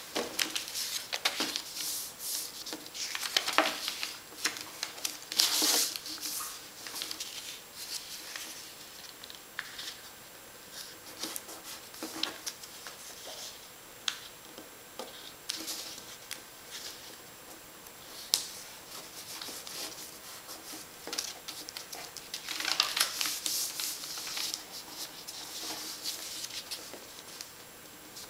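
A sheet of paper being folded and creased by hand on a tabletop: irregular rustling and sliding with sharp little crinkles as the folds are pressed flat. It gets louder for a few seconds twice, once early and again near the end.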